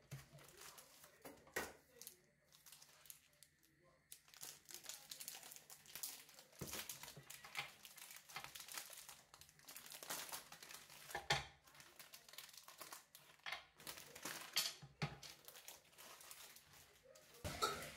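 Wrapper of dark chocolate bars crinkling and tearing as the bars are unwrapped by hand, with sharp clicks scattered through.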